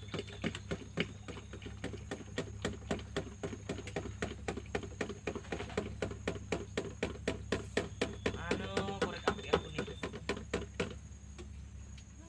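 A spoon clinking against a cup as a drink is stirred: rapid, even taps about four or five a second that stop about a second before the end. A brief voice-like hum sounds about two thirds of the way through.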